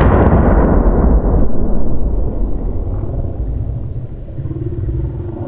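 Loud rolling report of a rifle shot dying away over about two seconds, then lower rumbling and animal sounds from the shot feral hog as it goes down.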